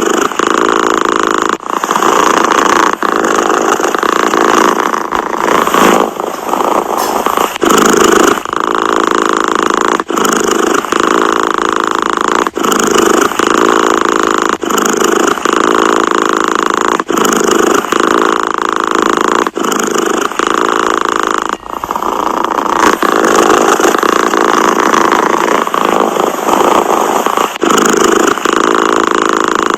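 Domestic cat purring loudly and steadily close to the microphone, with a brief dip in the purr every couple of seconds.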